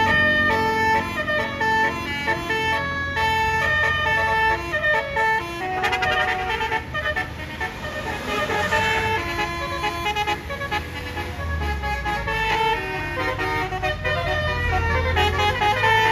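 A bus's Basuri multi-tone 'telolet' air horn plays a stepping melody of long and short notes over the bus's running engine, with a rushing noise partway through.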